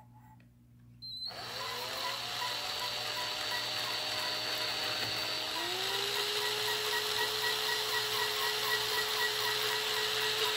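Electric drill spinning a 400-grit cylinder hone inside a cast-iron clutch slave cylinder bore: a steady motor whine over abrasive grinding. It starts about a second in with a rising whine, shifts pitch about halfway through, and cuts off abruptly at the end.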